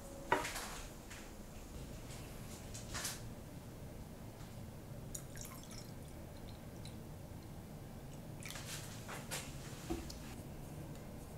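Turpentine poured from a plastic bottle into a small brass cup: a faint trickle with scattered drips. A sharp knock near the start, the loudest sound, from the metal cup set down on the wooden bench.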